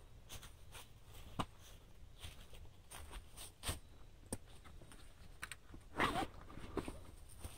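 Gear being handled in and around a backpack: scattered light clicks, knocks and rustles, with a louder scrape about six seconds in.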